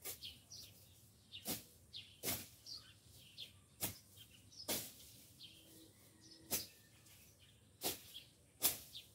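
A blade swung by hand into weeds and grass, about eight sharp cutting strikes at an uneven pace of roughly one a second. Birds chirp faintly in the background.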